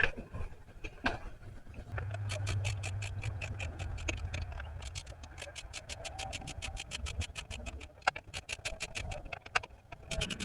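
Ratchet wrench clicking rapidly and steadily as lug nuts are run down onto a newly mounted wheel. The clicking starts about two seconds in, with a low hum under the first few seconds of it.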